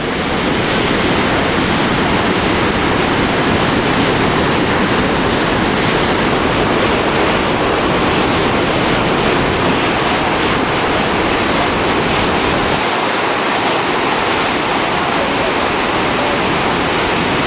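Iguazu Falls heard up close: a loud, steady rush of falling water that holds even throughout. The river is at its lowest flow of the year.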